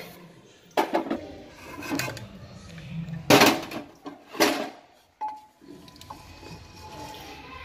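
Pressure cooker being opened and its contents stirred: a few separate clanks and knocks of the lid and a wooden spoon against the pot, the two loudest near the middle, then quieter stirring.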